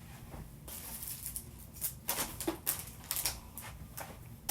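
Small household items being handled and set down: a few scattered light knocks and clicks over a soft rustle.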